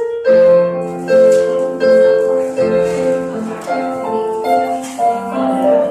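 Piano music: a melody played over chords, notes changing about every half second.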